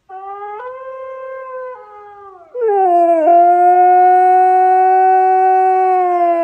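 Husky howling: a quieter, wavering howl first, then from about two and a half seconds in a much louder long howl that dips in pitch, holds steady and slowly falls near the end.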